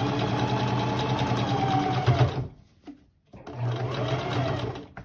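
Electric sewing machine running as it top-stitches a seam in cloth. It stops briefly about two and a half seconds in, starts again a moment later, and stops near the end.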